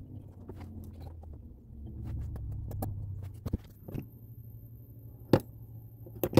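Sharp clicks and taps from handling the battery leads and pressing the buttons of a hobby LiPo balance charger, over a low steady hum. A faint high whine comes in about four seconds in, when the charger is set going.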